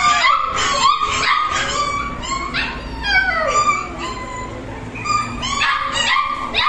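Several cocker spaniel puppies crying at once: many short, overlapping high-pitched calls, many falling in pitch. They thin out around the middle and crowd together again near the end.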